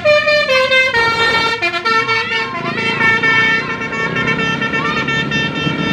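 Indonesian bus 'telolet' horn: a multi-tone musical air horn sounding loud held chords that change pitch every second or so, like a short tune.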